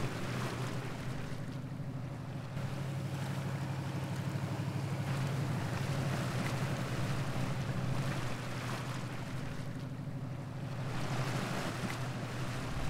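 Sailboat under way at sea: a steady low engine drone, with water rushing along the hull and wind buffeting the microphone.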